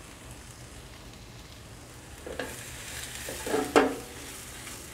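Sliced sausages and onion rings sizzling in a wok over a gas burner. From about two and a half seconds in, the wok is tossed: the food clatters and sizzles louder, with the loudest clatter near four seconds in.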